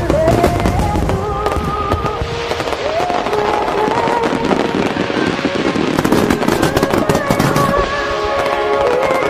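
Fireworks bursting and crackling in rapid succession, densest from about six to eight seconds in, mixed with background music carrying a melody.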